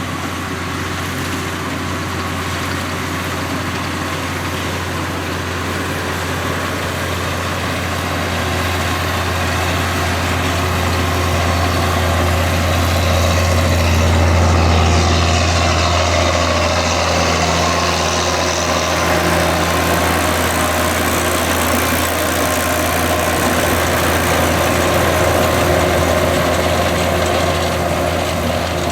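John Deere 7710 tractor's diesel engine running steadily, getting a little louder about halfway through.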